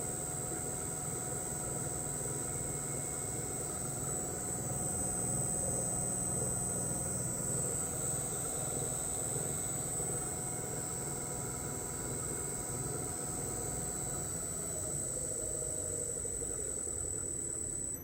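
Fuji FRENIC FRN1.5G1S-4DR variable-frequency drive running a motor on test: a steady high-pitched whine from the drive's switching, over a low motor hum. A mid-pitched motor tone falls about fifteen seconds in as the motor slows down.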